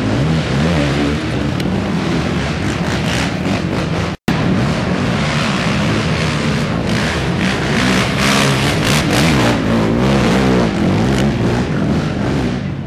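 Loud racing ATV (quad) engines revving on a steep dirt hill climb, their pitch repeatedly rising and falling. The sound drops out for an instant about four seconds in.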